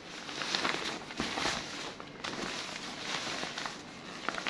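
Raincoat trousers of thin waterproof fabric rustling as they are handled, folded and lifted, in several swells, with a couple of small clicks near the end.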